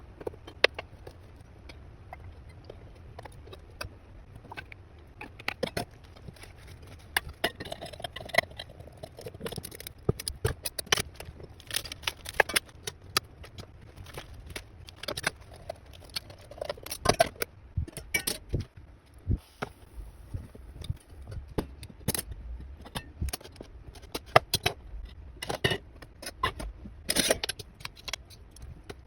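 Irregular clicks, clinks and scrapes of kitchen handling: food, a lunchbox, its lid and utensils being moved and set down, over a steady low hum.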